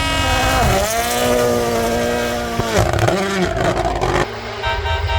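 Turbocharged rally car engine driven hard, its pitch dropping and climbing again through gear changes, with a brief throttle lift and a few sharp cracks near the middle. The engine sound falls away suddenly about four seconds in, leaving a quieter steady engine tone.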